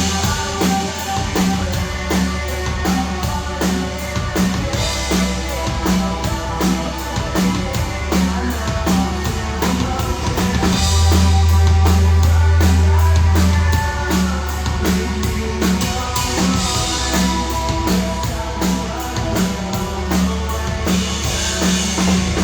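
Rock band playing a song, the drum kit keeping a steady beat of kick and snare over a sustained bass.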